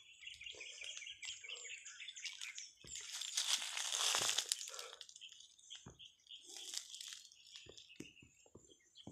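Footsteps crunching and crackling through dry fallen leaves, loudest about three to four and a half seconds in. Birds chirp faintly in the first couple of seconds.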